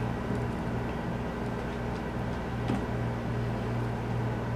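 A steady low mechanical hum, with a faint click about halfway through.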